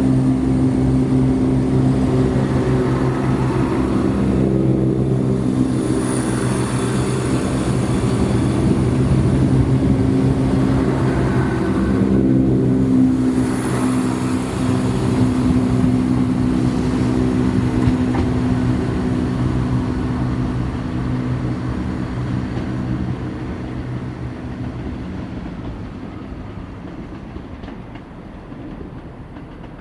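Chiltern Railways diesel multiple unit moving along the platform: a steady diesel engine hum with wheel and rail noise. It fades away over the last several seconds as the train leaves.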